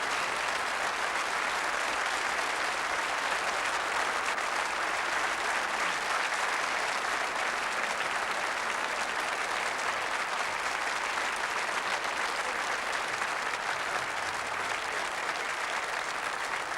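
Audience applauding, dense and sustained, easing slightly near the end.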